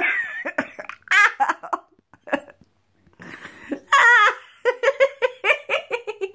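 A girl laughing: high, wavering squeals of laughter about a second in and again around four seconds, then a run of quick, rhythmic laughs near the end.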